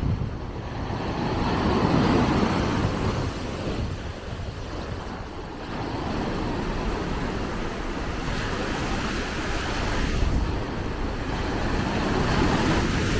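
Rough sea surf breaking and washing up a sandy shore, with wind rumbling on the microphone. The surf swells loudest about two seconds in and again near the end as waves break.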